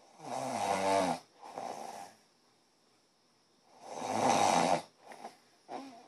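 A sleeper snoring: two loud snores about three and a half seconds apart, each a pitched breath sliding down in pitch, followed by a softer breath. Near the end come a few short, broken sounds.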